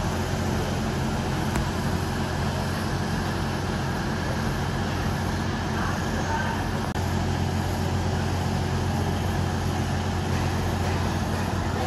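Steady running noise of a moving vehicle, with a low, even hum that grows stronger about seven seconds in.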